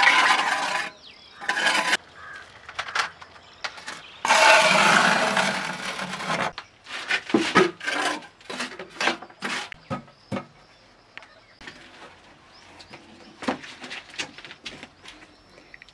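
Hand masonry work: a trowel scraping and tapping on cement mortar and stone slabs, a string of scrapes and knocks. A longer rasping scrape comes about four seconds in. It thins to scattered light clicks in the second half.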